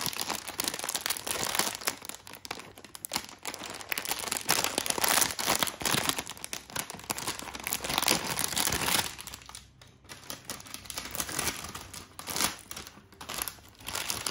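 Plastic-foil C-Top snack packet being crinkled and torn open by hand: a dense run of crackles and rustles that eases off briefly about two-thirds of the way through, then picks up again as the bag is pulled wide.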